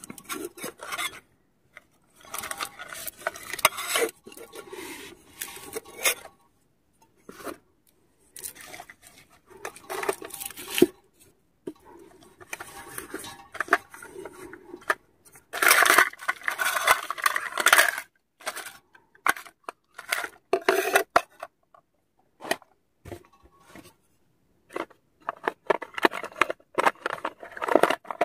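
Metal camping pots and lids clinking and scraping as they are handled and unpacked from a nested cookware set. The sounds come in irregular bursts with short pauses, and a longer, louder stretch of handling noise comes just past the middle.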